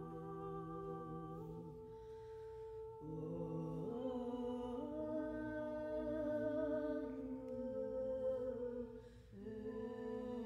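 Three women's voices holding long, sustained tones a cappella, overlapping in close chords that move to new pitches every few seconds, with a brief lull about nine seconds in.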